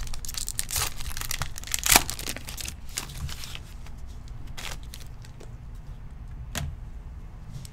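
A foil trading-card pack, 2020 Chronicles Football, being torn open, its wrapper crinkling in dense crackles with a sharp snap about two seconds in. After that the rustles and clicks thin out as the stack of cards is pulled free and handled, with one more snap near the end.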